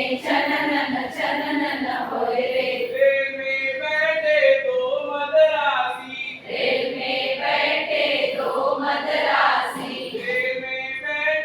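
A group of voices singing a song together, with a short break between phrases about six seconds in.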